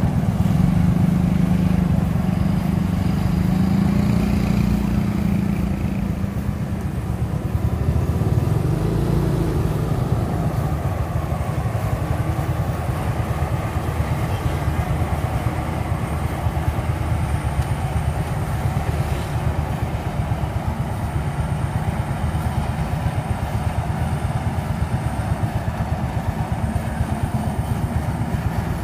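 Kubota rice combine harvester running steadily while harvesting, its engine and threshing gear making a continuous low drone that is a little louder in the first few seconds.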